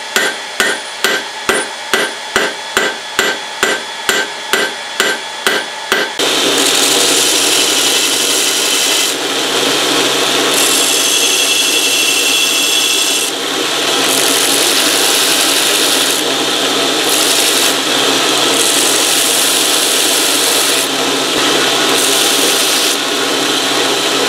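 Hand hammer striking hot steel on an anvil, about two and a half ringing blows a second, drawing out a leaf shape. About six seconds in it gives way to a belt grinder running steadily with the steel pressed against the belt to grind the leaf to shape, dipping briefly now and then as the piece is lifted off.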